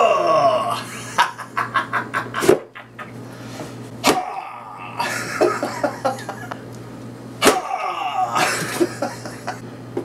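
A man laughing and grunting, with three sharp whacks, about two and a half, four and seven and a half seconds in, as a machete blade strikes a cardboard box.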